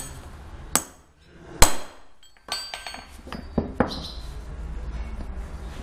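Sharp metal knocks and clinks from steel pellet-mill roller parts and hand tools being worked during roller assembly: a knock under a second in, a louder one about a second later, a quick run of ringing clinks, then two fast knocks.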